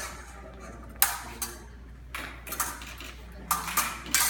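Épée blades clashing and scraping during a bout: a sharp metallic clink about a second in, then several irregular clinks and scrapes in the second half.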